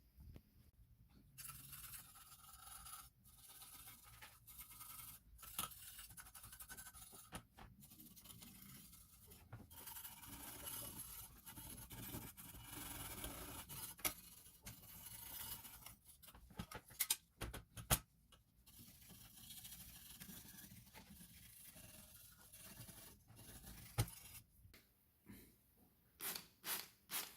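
Repeated hand scraping on a small metal model car part, in strokes with short pauses, with a few sharp clicks or taps in the second half.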